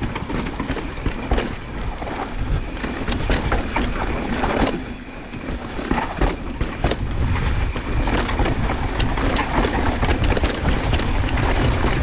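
Mountain bike rolling fast down a dry dirt and rock trail: a steady low rumble of tyres and wind, broken by frequent clicks and rattles from the bike over rough ground.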